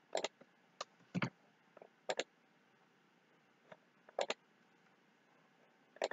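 Computer mouse clicking a handful of times, several as quick double clicks, with quiet room hiss in between.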